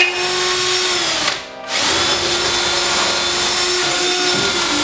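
Cordless drill spinning a wire brush against the engine bay's seams, stripping old seam sealer off the sheet metal. It runs steadily, winds down briefly about a second and a half in, then spins back up and keeps grinding.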